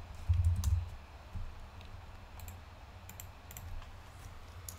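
Scattered sharp clicks from a computer mouse and keyboard as the charting software is operated, with a brief low thump just after the start.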